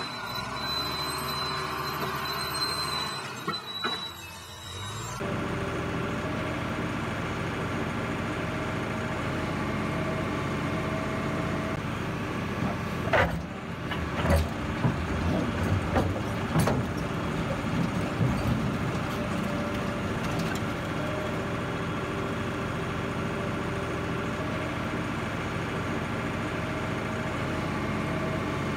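New Holland combine harvester running steadily, its engine and threshing machinery giving a constant hum of many tones, with a high whine in the first few seconds. A cluster of sharp metallic knocks and clanks comes about halfway through.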